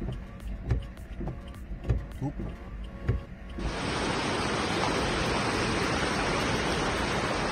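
Irregular low thumps and knocks, heard from inside a car driving along a flooded road. About three and a half seconds in, this cuts to a steady, loud rush of muddy floodwater pouring down a slope as a flash-flood torrent.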